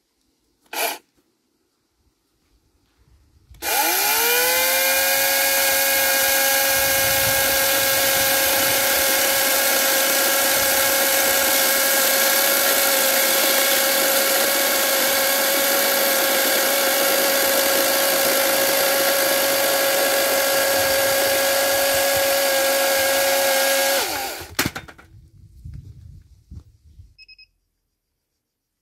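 Snapper SXDCS82 82 V battery chainsaw, its brushless electric motor spinning up with a quickly rising whine and then running at a steady high whine for about twenty seconds as the chain saws through a log. It stops suddenly, followed by a few knocks and rustling. A short burst of the saw comes near the start.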